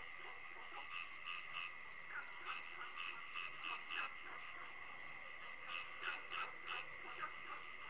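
Frogs calling in short, irregular notes over a steady high-pitched trill, like a night-time frog and insect chorus.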